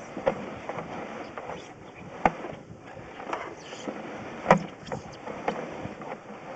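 Irregular knocks and clicks over a steady hiss from the work of running a sewer inspection camera and its push cable, the strongest knocks about two seconds and four and a half seconds in.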